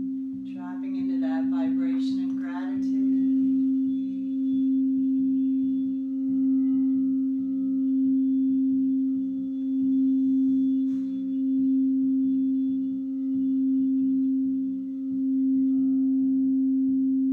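Crystal singing bowl played by rubbing a mallet around its rim, holding one low steady tone that swells and eases in loudness every second or two.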